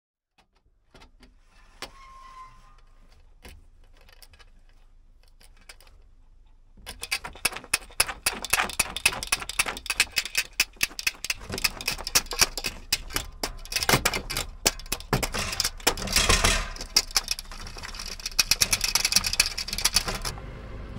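Dense clicking and rattling as a dark cover is worked off a van's side window. It starts about seven seconds in, after a few seconds of faint room sound with a few light clicks.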